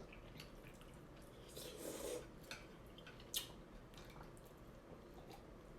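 Quiet eating sounds: a few light clicks and taps of chopsticks against food containers, with one sharper click about three and a half seconds in.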